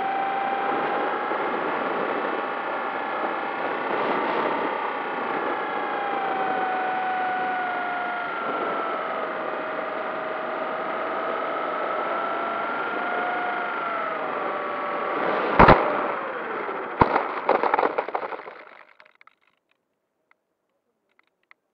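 Steady whine from an FPV model plane's onboard camera in flight, its pitch wavering slightly, then a sharp thud as it touches down, another knock a second later and a rattling scrape as it slides through grass before stopping short.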